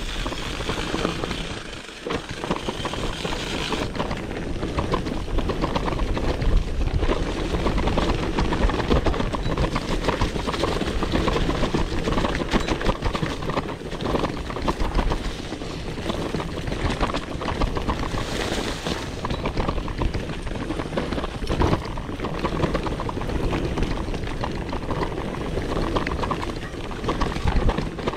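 Mountain bike descending a rough downhill trail: wind rushing over the microphone, tyre noise on dirt and many small knocks and rattles from the bike over bumps.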